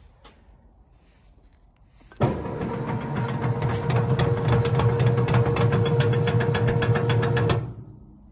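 Mainca MG-95 mixer-grinder's 5.5 kW three-phase electric motor switched on suddenly, running steadily with a low hum, a steady whine and fast regular clicking from the mechanism for about five seconds, then switched off and running down.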